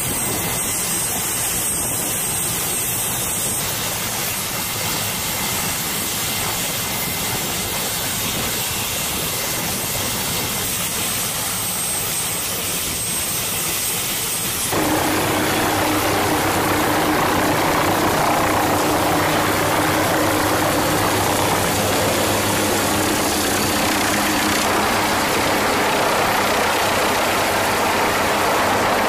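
MQ-8B Fire Scout unmanned helicopter's turboshaft engine and rotor running steadily, with a thin high whine. About halfway through the sound turns suddenly louder and fuller, with a steady low hum added.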